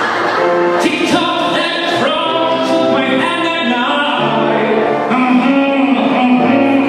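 A man singing into a microphone, accompanied by piano.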